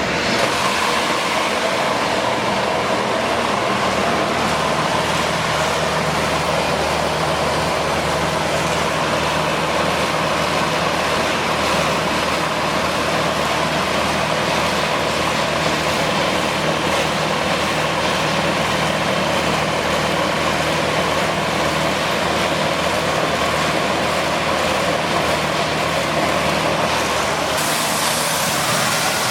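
Maize milling machine running steadily: a constant mechanical hum under a dense whirring, rushing noise, with a brighter hiss joining near the end.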